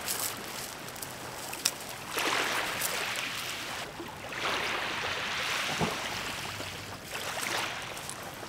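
Rope hauled hand over hand along a boat's outhaul line: a few long swishes of line running through the hands, over small waves lapping on a gravel shore.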